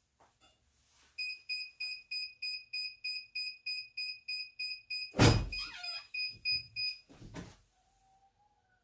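Heat press's digital timer beeping rapidly, about four beeps a second, signalling that the pressing time is up. About five seconds in comes a loud thunk, the loudest thing heard, with a short squeak after it, then a smaller thump a couple of seconds later, as the clamshell press is opened.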